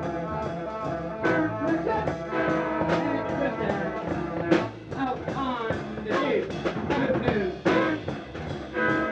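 A rock band playing live, with drum hits cutting through the pitched instruments.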